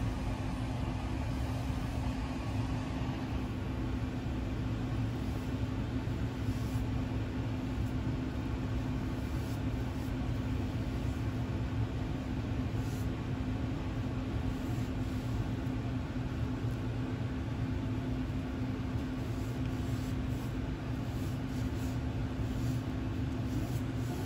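A steady mechanical hum with one constant low tone, unchanging throughout, with faint short scratches of a paintbrush stroking along baseboard trim now and then.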